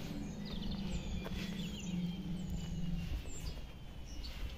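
Small birds chirping over outdoor background noise, with a low steady hum that stops about three seconds in.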